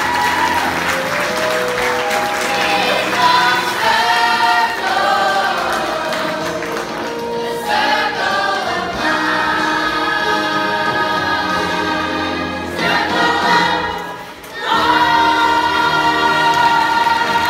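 A children's stage cast singing together in chorus over backing music, with a brief drop in level a little after 14 seconds, then long held notes.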